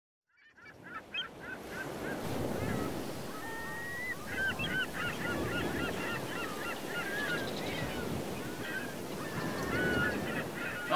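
A flock of birds calling, many short honking calls overlapping one another, over a steady low rush. The sound fades in at the start.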